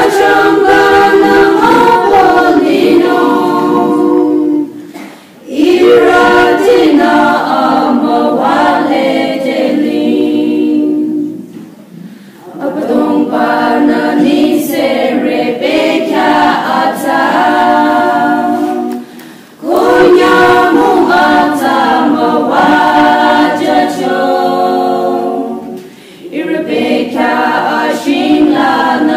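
A small women's choir singing a hymn a cappella from hymnals, in sung phrases broken by short breaths about every six to seven seconds.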